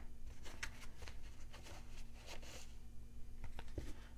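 A deck of tarot cards being cut and handled: soft swishes of the cards sliding and a scattering of light taps.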